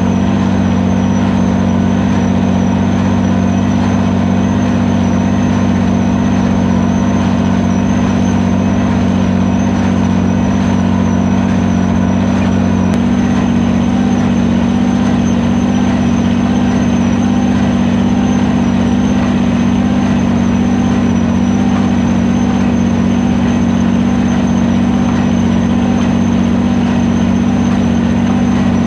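Farmall 460 tractor engine running steadily, a constant drone with no change in pitch.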